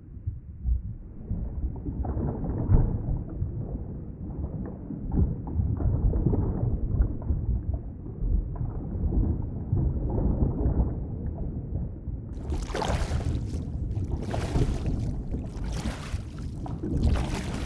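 Underwater ambience: a muffled, low rumbling wash of water. About twelve seconds in it switches abruptly to brighter, unmuffled water sloshing that surges about once a second.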